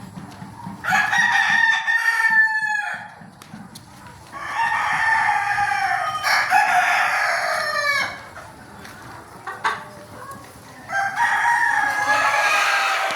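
Desi roosters crowing: three long crows, the middle one the longest, with a third starting near the end.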